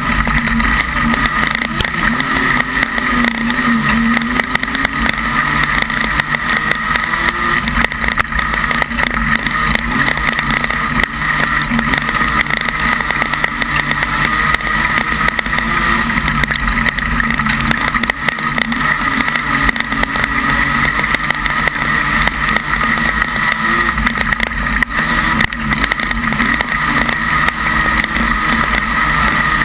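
Modified Production speedway car's engine running hard at racing speed, heard from inside the cockpit. The revs rise and fall a little through the turns.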